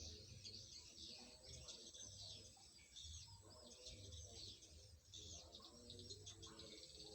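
Small birds chirping faintly, with many short, overlapping calls.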